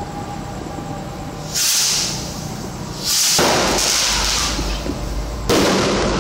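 New Year fireworks going off: a short, high rush about one and a half seconds in, a longer and louder burst from about three seconds, and another that starts suddenly near the end.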